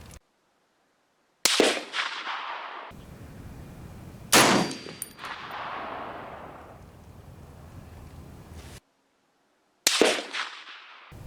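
Three shots from an M1A semi-automatic rifle in .308, each with a sharp crack and an echo that fades over a second or two. The first two are about three seconds apart and the third comes about five and a half seconds later.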